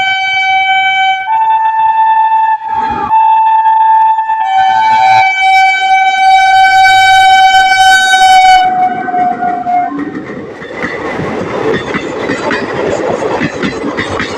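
Indian Railways WAP-4 electric locomotive horn sounding a long, melodious honk that steps up and back down in pitch several times. About ten seconds in it stops, and the train's wheels are heard clattering over the rail joints.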